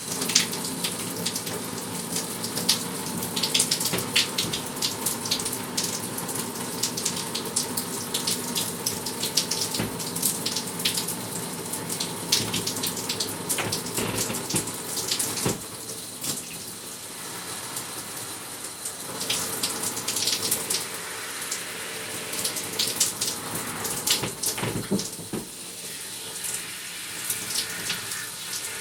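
A running shower: water spraying and splattering steadily, with frequent irregular splashes and a few brief changes in the flow.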